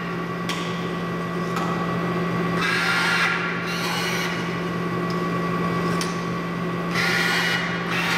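Fast pneumatic sample-transfer system cycling a sample capsule back and forth through its tube line at lowered air pressure. Air hisses in several bursts, the longest about three seconds in, with sharp clicks between them, over a steady hum.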